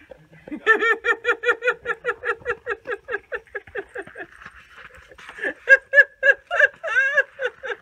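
A person laughing: a long run of quick rhythmic 'ha' pulses, about five a second, that tails off, then louder bursts of laughter near the end.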